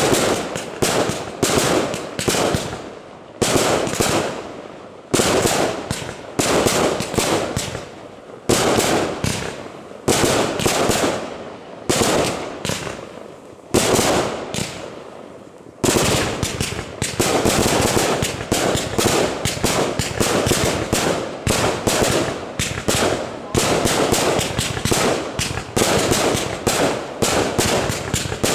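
Fireworks display: a series of sharp bangs, each trailing off in a rumble. The bangs come about one a second at first, then from about halfway through in a rapid volley of several a second.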